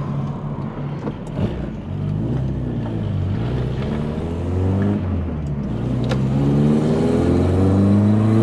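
Freshly rebuilt VW Polo Coupe engine accelerating hard through the gears. Its pitch climbs, drops back at each change and climbs again, longest and loudest near the end.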